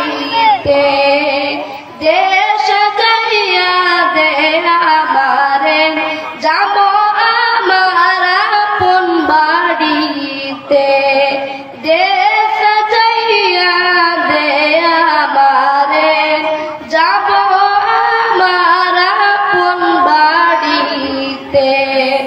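A boy singing a Bengali Islamic gojol unaccompanied into a microphone. He sings long held, ornamented phrases with short breaths every few seconds.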